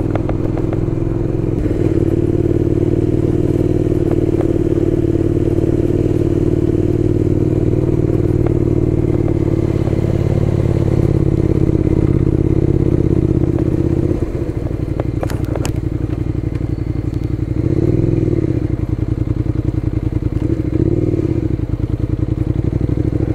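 Suzuki Gladius 400's V-twin engine running at steady low revs. About 14 seconds in, the note drops a little and a couple of sharp clicks come through. The revs then rise and fall briefly twice.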